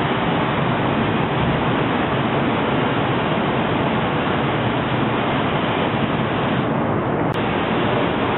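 Steady rushing air noise of an industrial paint spray booth, its extraction airflow and spraying running without a break.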